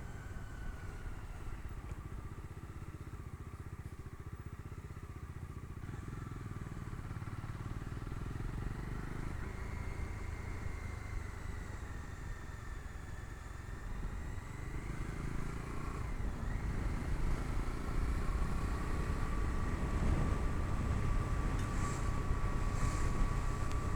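Bajaj Dominar 250's single-cylinder engine running on the road, heard from the pillion seat, getting louder over the second half.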